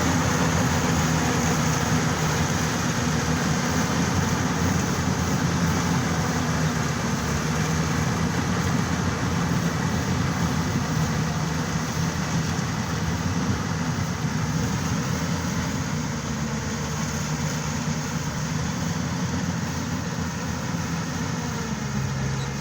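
Yanmar YH700 full-feed combine harvester running steadily, its engine and machinery making a continuous, dense drone that eases off slightly near the end.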